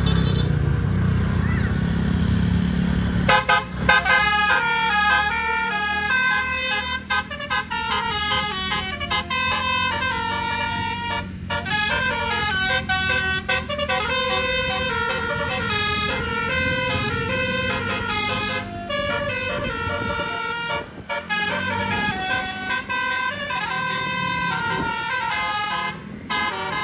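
Tour bus's telolet horn, a bank of electrically switched air horns, playing a fast tune of stepped notes, with several notes sounding together and a couple of short breaks. The bus's engine rumbles alone for the first three seconds or so before the horn starts.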